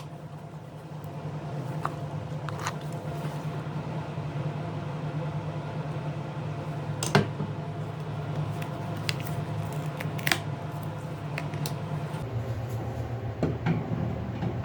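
Small sharp clicks and scrapes of tools handling a smartphone during disassembly, a few scattered ones, the loudest about seven and ten seconds in, over a steady low hum.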